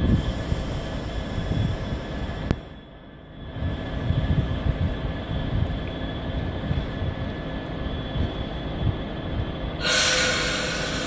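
Class 66 diesel locomotive's EMD two-stroke V12 engine running with a low rumble as it hauls a train slowly into the station. The rumble dips briefly about three seconds in, and near the end a loud hissing, high-pitched screech from the train's wheels starts.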